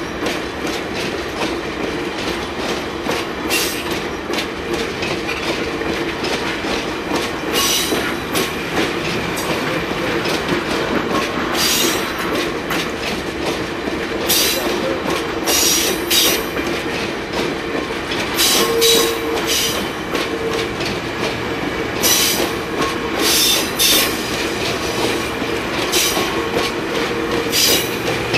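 VIA #1's fluted stainless-steel passenger cars rolling slowly by on the siding: a steady clatter of wheels on rail, with brief high-pitched wheel squeals every few seconds.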